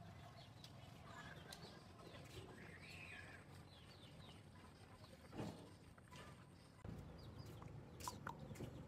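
Faint sounds of two puppies eating rice from a plastic bowl: soft chewing and lapping with scattered clicks, the clearest about halfway through and near the end.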